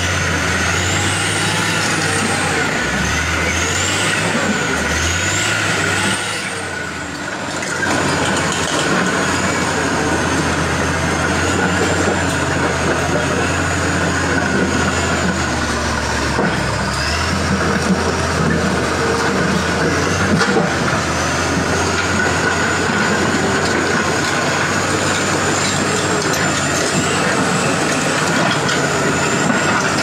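Caterpillar crawler bulldozer's diesel engine running steadily as it works, a low drone with a thin high whine above it that wavers up and down. The sound dips briefly about six seconds in.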